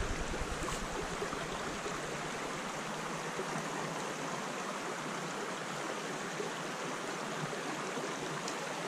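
Shallow creek running over a rocky bed: a steady rush of water.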